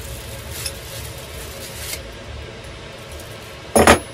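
Clear plastic parts bag crinkling as it is handled, with faint rustles and then one loud, short crackle near the end.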